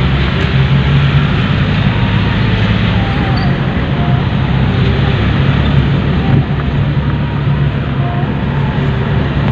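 Steady engine hum and road noise from inside a moving vehicle.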